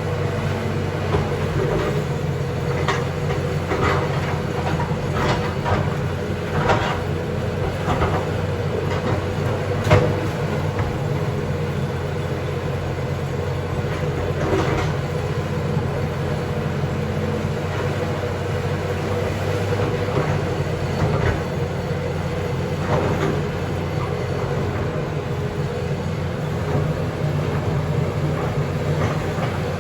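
John Deere backhoe's diesel engine running steadily, with scattered knocks and clanks over it. The knocks come mostly in the first half, the loudest about ten seconds in.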